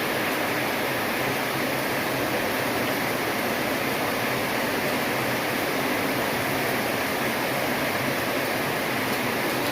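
Heavy monsoon rain falling in a steady, unbroken hiss, with no single drops, thunder or changes standing out.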